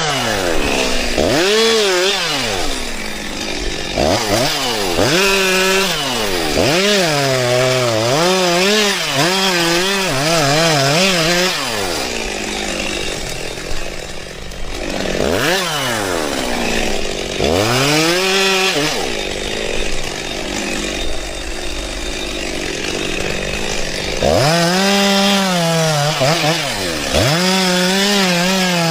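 Cordless battery chainsaw cutting wood, its motor repeatedly speeding up and slowing down so the pitch rises and falls, with a wavering pitch while the chain is in the cut.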